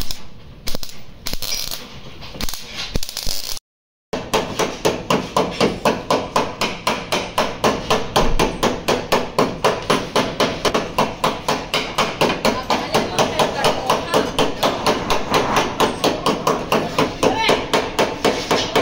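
A short spell of stick-welding crackle, then after a brief break a fast, steady run of hammer blows on steel car-body sheet metal, about five strikes a second, planishing a welded-in patch on a Honda N-WGN's wheel-arch panel.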